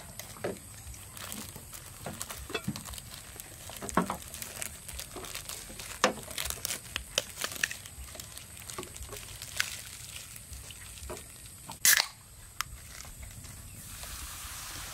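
Plastic shrink-wrap crinkling and tearing with scattered small clicks as small plastic yogurt-drink bottles are unwrapped. About twelve seconds in, a soda can's tab cracks open with one short, loud snap, and near the end a steady fizzing hiss begins as the soda is poured.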